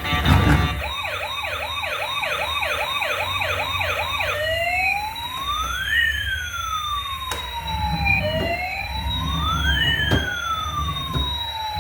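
Electronic siren of a toy emergency vehicle: a fast yelp of about three sweeps a second for the first four seconds, then a slow wail with two tones gliding up and down past each other. A thump sounds right at the start, and two sharp clicks come later.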